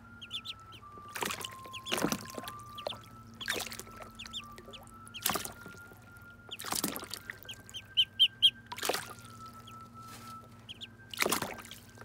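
Muscovy ducklings peeping in short high clusters while they paddle in a tub of water, with several sharp splashes. The loudest moment is a run of four quick peeps about eight seconds in.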